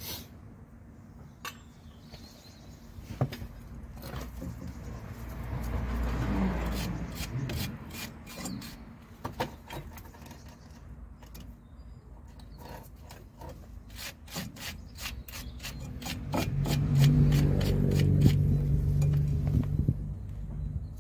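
Hand tools working on a car's front brake caliper: rubbing and scraping of metal parts, a run of rapid sharp clicks in the second half, and a louder low hum near the end.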